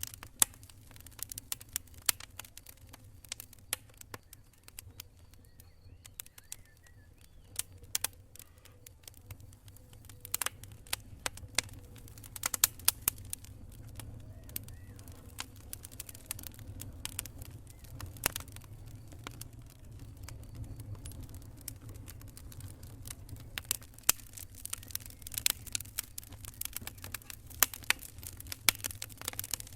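Wood campfire crackling: irregular sharp pops and snaps, some louder than others, over a steady low rumble.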